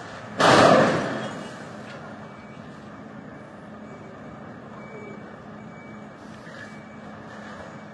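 A sudden loud noise about half a second in, fading away over about a second, then a vehicle running steadily in the background.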